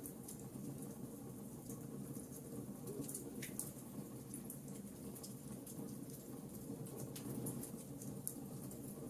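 Birch logs burning in a fireplace: a steady low rumble of the fire with frequent small crackles and sharp pops scattered throughout.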